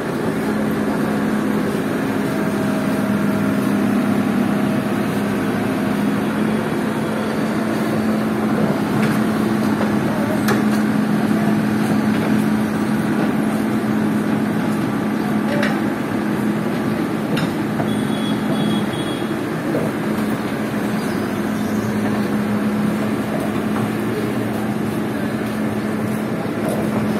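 A heavy diesel engine running steadily with an even hum, from the loaded crawler excavator or the lowboy truck carrying it. Street noise and voices around it, with a few sharp clicks.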